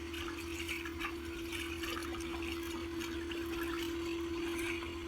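A small electric motor humming at a steady pitch, with water trickling and splashing.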